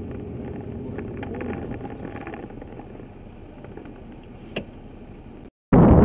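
Steady engine and tyre rumble of a vehicle driving on a rutted dirt track, heard from inside the cabin and slowly fading, with a single knock about four and a half seconds in. Near the end it cuts out for a moment, and loud wind noise on the microphone takes over.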